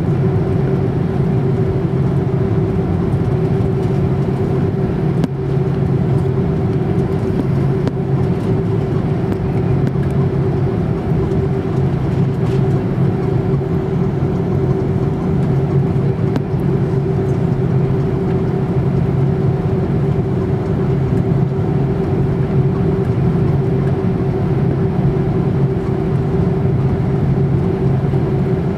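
Cabin noise inside an Airbus A330-343 taxiing, its Rolls-Royce Trent 700 turbofans at low taxi thrust: a steady drone with a low hum and a steady mid-pitched tone over it.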